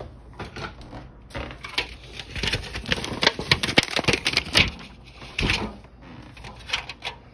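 Thin clear plastic lid crackling and clicking as it is handled and pressed down onto a foil pie tin. There is a dense run of crinkles in the middle and a few more clicks near the end.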